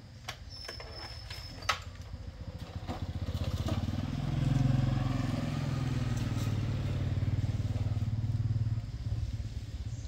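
A few sharp clicks, then a small motorcycle engine running, growing louder about three seconds in, holding steady, and dropping off near the end.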